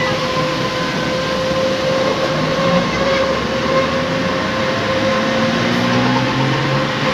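Interior of a city bus on the move: the engine and drivetrain give a steady rumble and rattle over a constant whine. About five seconds in the engine note climbs as the bus picks up speed.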